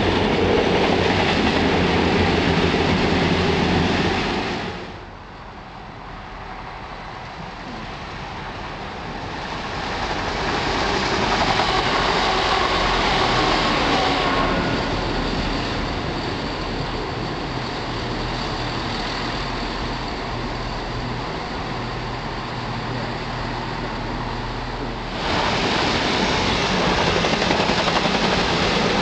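Diesel multiple-unit passenger trains passing along station platforms, with the steady noise of wheels on rails and underfloor diesel engines: a CrossCountry Voyager, then a Chiltern Railways unit, then a Voyager passing close. The level drops sharply about four seconds in, builds again, and jumps back up abruptly near the end.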